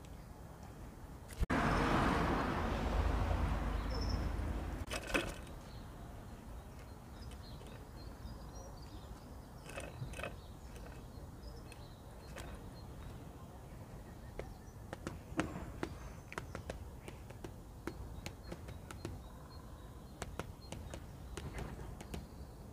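Great spotted woodpecker pecking at a wire-mesh peanut feeder: scattered sharp taps, coming thicker in the last few seconds. Near the start, a loud rushing noise lasts about three seconds.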